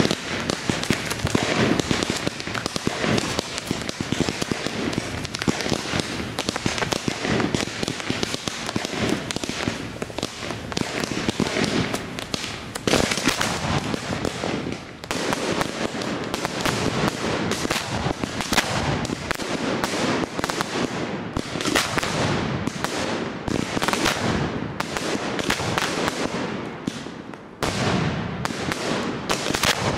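Fireworks display: a dense, continuous barrage of rapid bangs and crackling shell bursts, with two brief lulls, about halfway through and near the end.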